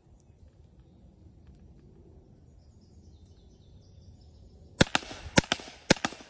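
PepperBall TCP compressed-gas .68-calibre launcher firing a quick string of about five sharp shots, starting about three-quarters of the way through, with its velocity turned up to about 330 feet per second. Before the shots there are only faint bird chirps.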